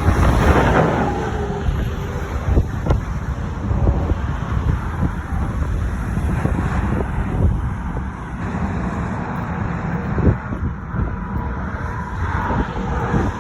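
Wind buffeting the microphone: a continuous low rumble with uneven gusts.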